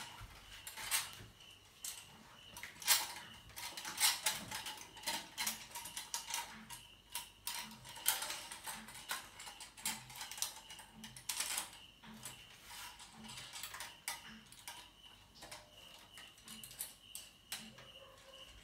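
Irregular metal clicks and rattles of a Yagi TV antenna's mounting clamp being fitted and adjusted on an upright pipe stand.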